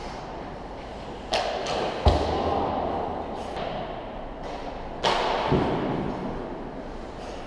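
Two hockey shots: each a sharp crack of stick on puck, followed within about a second by a heavier low thud of the puck striking, with ringing after each in the rink.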